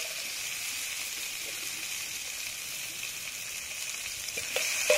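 Chopped capsicum, tomato and onion sizzling steadily in butter in a large pot over a portable stove, with no stirring.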